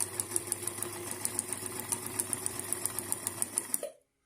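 Vintage Brother Riviera 110 sewing machine running and stitching: a motor hum with a steady rapid ticking, about six or seven stitches a second, that stops abruptly near the end.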